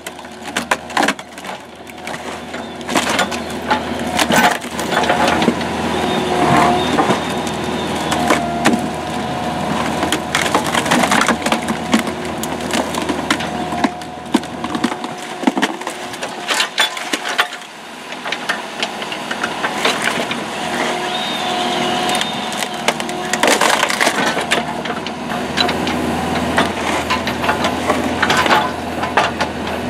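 Lasco Roli 10 hydraulic screw cone splitter on a mini excavator boring into a large beech round: the wood cracks and splinters again and again as it is torn apart. Underneath runs the steady hum of the excavator and the splitter's hydraulic drive.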